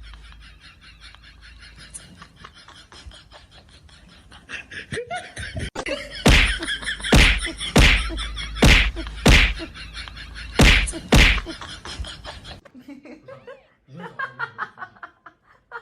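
A series of about seven loud, sharp slaps or knocks, roughly one every second, after a few seconds of quieter rustling.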